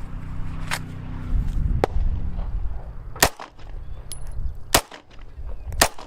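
Glock 43X 9mm pistol being fired, five shots spaced one to one and a half seconds apart, the last three the loudest.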